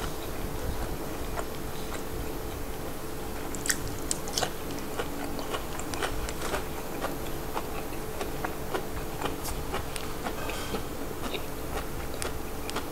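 Close-miked chewing of a mouthful, with scattered small crunches and clicks from frog bones in the chili dip, over a faint steady hum.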